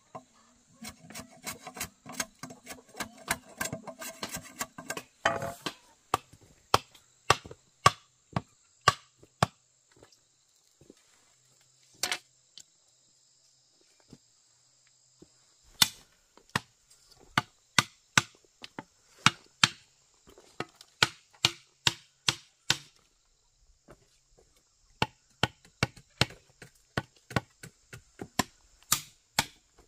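Bamboo being worked by hand: a few seconds of rough scraping strokes, then a run of sharp chopping blows on bamboo, one or two a second, pausing for a few seconds midway before resuming. Insects chirr steadily in the background for most of it.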